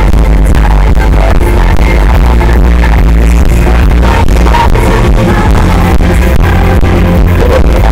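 Live pop band playing loudly in a concert hall, with acoustic guitar, piano and drums, heard from the audience. The recording sits near full scale, heavy in the bass.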